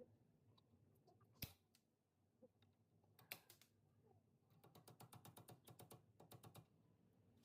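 Faint clicking and tapping of small metal hand tools being handled, with one sharper click early and a quick run of rapid, even clicks lasting about two seconds past the middle.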